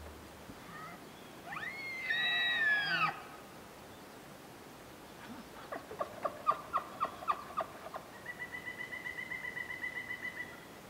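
Bull elk bugling: a high whistled call that rises and then falls, lasting under two seconds. A few seconds later comes a run of short chuckles, about three a second. Near the end there is a faster, steady high trill.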